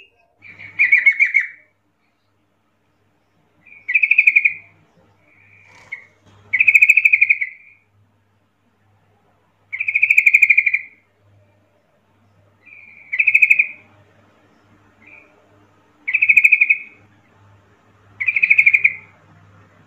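Yellow-vented bulbul calling: a series of short, rapid-textured call phrases, each under a second, repeating every two to three seconds, with a few softer notes in between.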